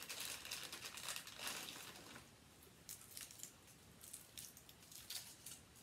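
Packaging crinkling as it is handled: a run of dense crackles over the first two seconds, then a few faint scattered crinkles.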